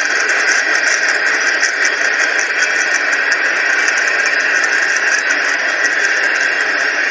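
Freight cars rolling past on the rails: a steady rattling noise of wheels and car bodies, with rapid light clicks, heard through a computer's speakers from a trackside webcam stream.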